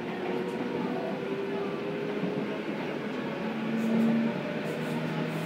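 Seibu 6000 series electric train running, its original VVVF inverter giving off a whine of a few held tones that shift in pitch every second or so over the rumble of the train. This is the inverter sound that is being lost as the series' VVVF equipment is renewed.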